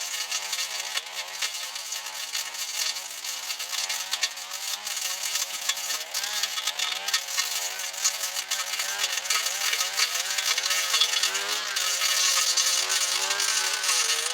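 Small two-stroke engine of a handheld power tool running, its revs wavering up and down as it works, louder near the end.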